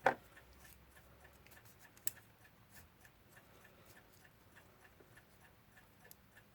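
Faint, steady ticking of a mechanical clock, about four ticks a second. There is a knock right at the start and a sharp click about two seconds in.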